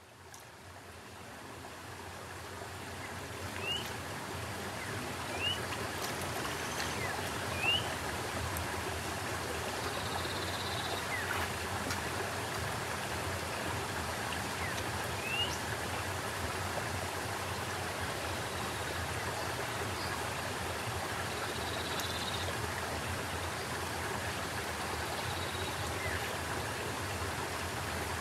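Rocky river water rushing steadily, fading in over the first few seconds. A few short rising chirps sound over it in the first half.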